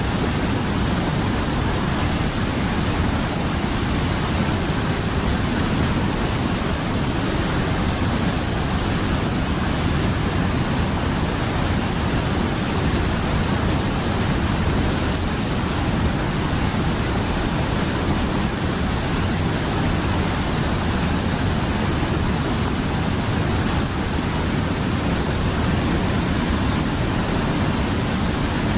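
A mountain river rushing steadily over rocks, a constant full rush of water without breaks.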